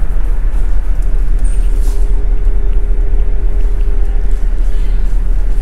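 Ferry under way on the open deck: a steady low rumble from the ship's engines and machinery with a constant hum, and wind buffeting the microphone.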